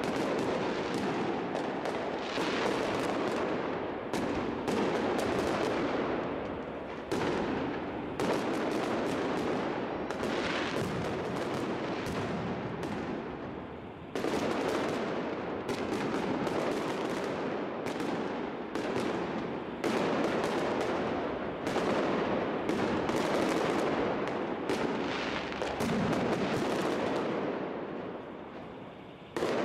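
Aerial fireworks bursting overhead in a rapid, near-continuous barrage of bangs and crackles, easing briefly about halfway through and again near the end before picking up.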